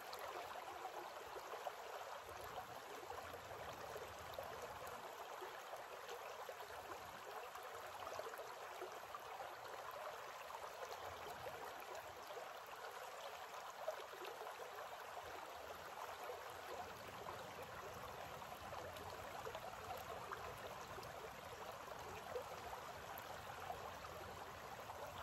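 Shallow creek running over stones: a faint, steady rush of flowing water, with a few small ticks here and there.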